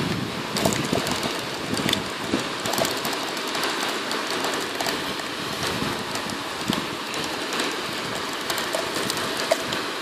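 Handling noise from a thin clear plastic cup held and turned in the hand: scattered crackles and clicks over a steady rushing noise.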